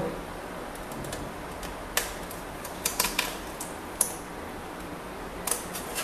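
A few short, sharp clicks and taps of a Phillips screwdriver working the screw in a laptop's plastic base panel, several of them close together in the middle.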